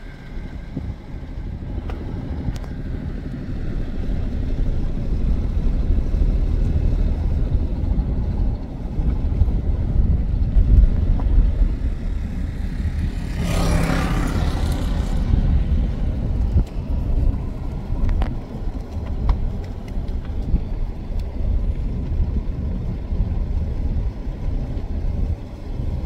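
Steady low rumble of a car on the road, heard from inside the car. A motorcycle passes close by about halfway through, its engine briefly the loudest sound.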